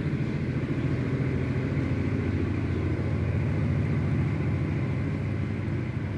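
Fire burning hard in a clay cooking stove, a steady low rumble.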